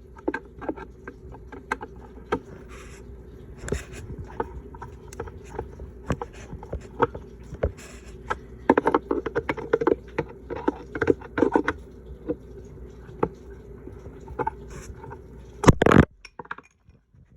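Screws being tightened down on a smoke alarm's mounting bracket: irregular clicks, taps and scrapes of the tool and fittings. There is a loud knock near the end, then the sound cuts off.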